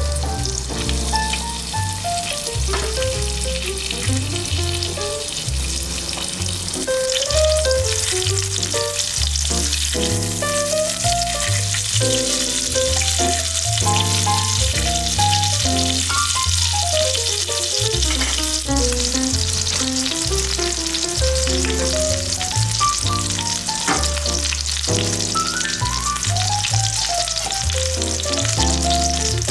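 Chicken frying in a pan, with a steady sizzle that grows louder about seven seconds in. Background music with a melody and a stepping bass line plays throughout.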